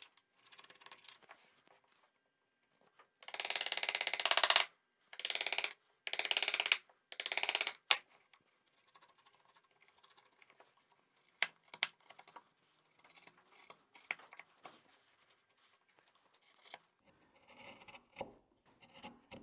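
Ashley Iles hand chisel paring thin shavings off a wooden tenon: three loud scraping strokes of about a second each in the first half. Then only faint ticks and small scrapes as lighter cuts are taken back to the shoulder line.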